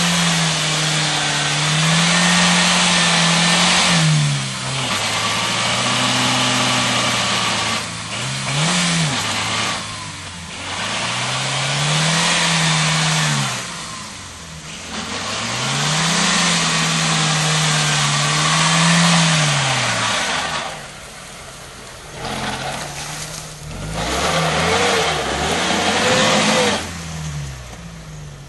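An off-roading 4x4 truck's engine is revved up and down over and over, each rev climbing and falling back, while the truck strains on rear-wheel drive only. It drops to a lower, rougher run over the last few seconds.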